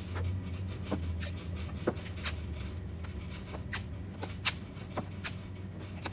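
Light handling noises: scattered sharp clicks and short rustles, about ten in all, the loudest near the start and about four and a half seconds in, over a steady low hum.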